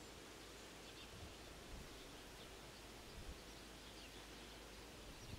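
Near silence: faint outdoor ambience with a few faint, short bird chirps scattered through it.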